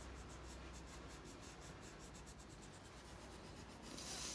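Crayon rubbing faintly on paper in quick, even strokes as a small area is coloured in, with a brief louder rub near the end.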